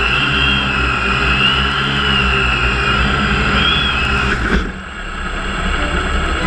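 Small electric motor of a radio-controlled car whining, its pitch wavering up and down with the throttle, over the rumble of the wheels. The whine cuts off about four and a half seconds in as the car runs into long grass.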